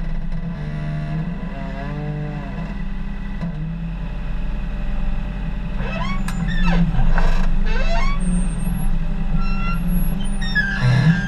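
Backhoe's diesel engine running steadily, with whining tones in the first few seconds and sweeping squeals about halfway through and again near the end.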